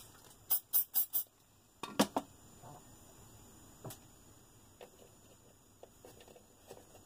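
Four short hisses from an aerosol spray can, in quick succession, followed by a sharp knock about two seconds in and a few faint clicks of small plastic parts being handled.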